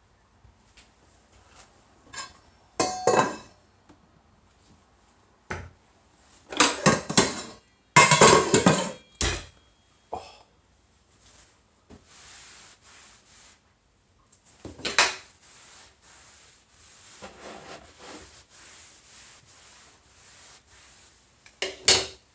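Pots, pans and metal utensils clattering and clanking in irregular bursts, with a quieter hiss between them in the later part.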